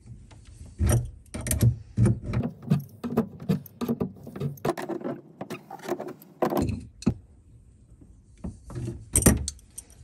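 Adjustable wrench clinking and scraping on the metal nut of a braided supply hose as it is snugged onto a plastic feed water adapter. A quick run of sharp metallic clicks and knocks, a pause, then a few more near the end, the loudest about nine seconds in.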